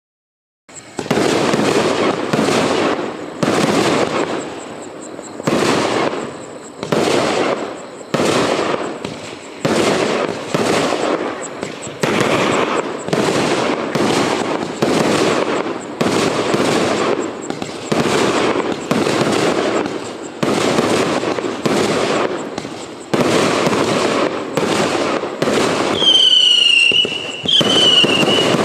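A multi-shot firework battery (cake) firing, a sharp shot about every second in a steady string. Near the end some shots carry a whistle that falls in pitch.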